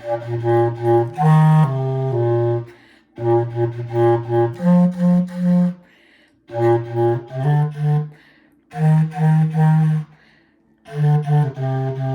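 A single low-pitched instrument played solo: short phrases of quick repeated notes, separated by brief pauses, loud.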